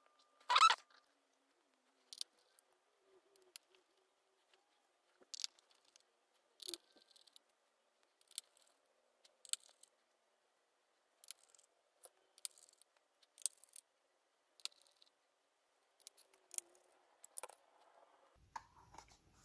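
Faint, irregularly spaced small clicks and ticks, roughly one a second, from a precision screwdriver taking out the tiny screws that hold a tablet's motherboard.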